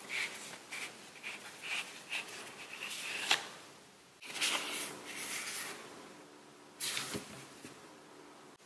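Paper and thin card inserts rustling and sliding against each other as gloved hands pull them from a paper sleeve and fan through them. There is a sharp tap about three seconds in and louder swishes near the middle and again near the end.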